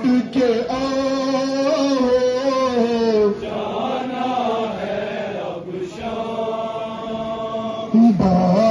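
Male voice chanting a nowha, a Shia mourning lament, in long held notes that bend slowly in pitch. In the middle it drops to a softer, blurred stretch of voices, then comes back louder near the end.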